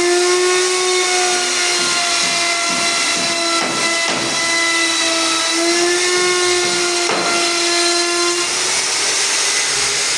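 Small high-speed electric motor of a homemade rotary tool running with a steady whine over a hiss. Its pitch wavers slightly and dips a little now and then.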